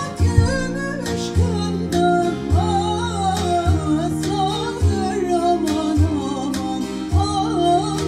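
A woman singing a Turkish folk song in an ornamented, wavering melody over acoustic guitar and other plucked strings, with low notes struck about once a second.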